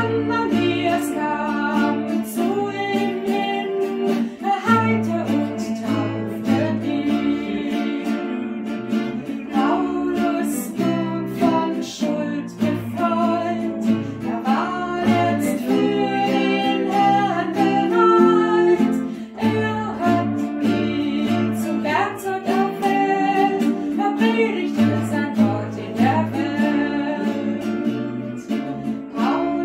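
A hymn sung by a woman who accompanies herself on an acoustic guitar.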